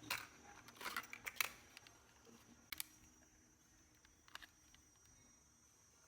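Sharp small mechanical clicks and taps from handling a portable cassette recorder: a cluster in the first second and a half, then single clicks near three and four seconds, over a faint steady high tone.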